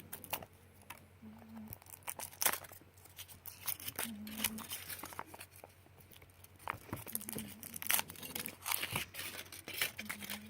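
Foil wrapper of a Kinder Surprise egg being torn and crinkled as it is unwrapped, in irregular crackles and small clicks.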